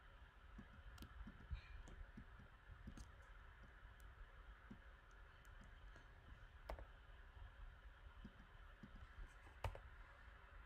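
Faint, scattered clicks of a computer mouse and keyboard over a low steady hiss, with two sharper clicks, one just past the middle and one near the end.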